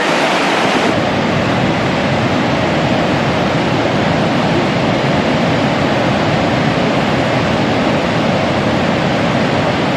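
Steady roar of the Niagara River's rushing water, an even rushing noise with no rhythm or pitch.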